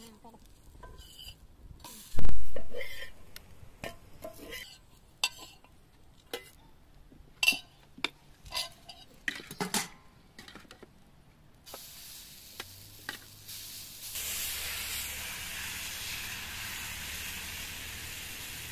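Metal spoon clinking and scraping against steel cookware as food is stirred, with one loud knock about two seconds in. A steady hiss takes over for the last few seconds.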